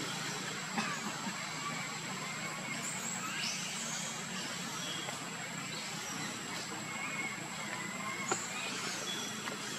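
Steady background hum and hiss with a few faint, short high chirps scattered through it and a couple of small clicks.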